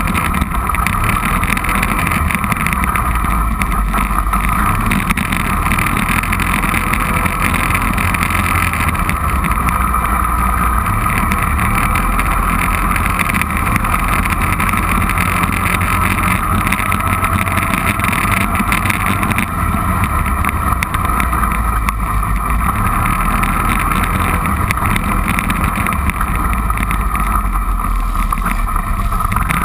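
Four-wheeler (ATV) engine running steadily and loudly while riding along a dirt trail.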